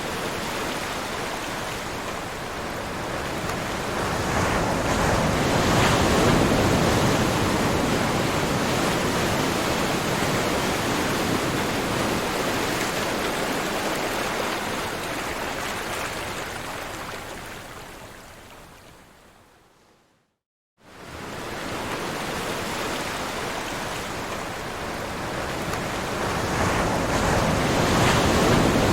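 Ocean waves washing in as a steady surf rush that swells and eases. About two-thirds through it fades out to a brief silence, then starts again and builds to another swell near the end.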